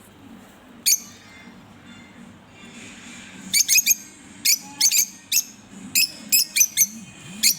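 A pair of Fischer's lovebirds giving short, shrill chirps: one about a second in, then a quick run of about a dozen from the middle on, over a faint low hum.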